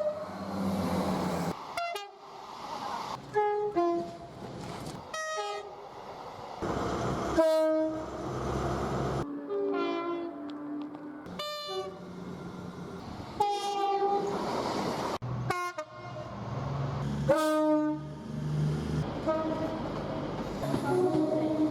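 A rapid run of short clips of British trains sounding their horns, most blasts a two-tone high-then-low call, each clip cut off abruptly. Between the blasts, trains rumble and rattle past.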